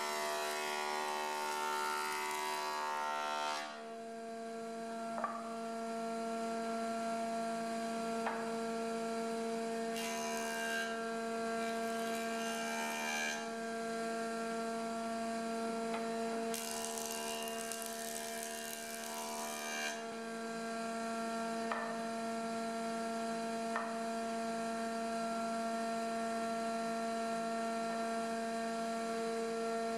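Combination jointer-planer running with a steady motor hum, its cutterhead hissing as a wooden board is fed across it in three passes: one ending about four seconds in, one around ten to thirteen seconds, and one around seventeen to twenty seconds. A few light knocks come in between.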